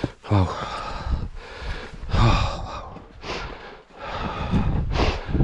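A hillwalker breathing hard close to the microphone, with a heavy breath about once a second. Some of the exhales are voiced, like a short grunt or sigh.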